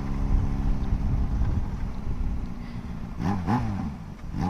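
Yamaha XJ6 inline-four motorcycle engine running steadily under wind noise, then revved in a few quick throttle blips about three seconds in.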